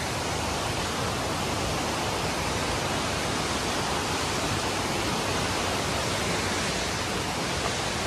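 Steady rush of fast-flowing water from a mountain stream and waterfall, an even noise with no breaks.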